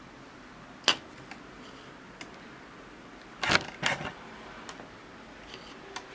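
Sharp clicks and taps of multimeter probe tips being set against capacitor leads on a receiver's circuit board while it is checked in diode/continuity mode: one click about a second in and a louder cluster of clicks midway.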